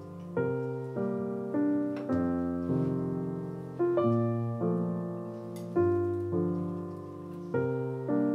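Background solo piano music: slow, gentle chords struck about once a second, each left to fade before the next.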